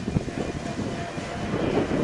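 Steady low rumble of the Blue Star 2 ferry's engines holding the ship against the quay in rough weather, mixed with wind buffeting the microphone.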